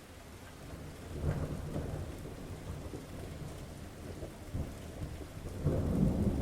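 Steady rain falling during a thunderstorm, with low thunder rumbling: a rumble swells about a second in and a louder one near the end.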